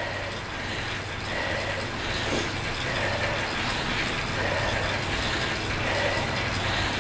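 Indoor bike trainer whirring steadily under hard pedalling at high cadence, with a low steady hum.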